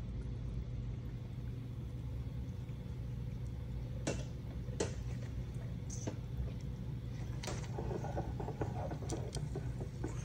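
Steady low mechanical hum in the room, with a few short light clicks and taps, more of them near the end.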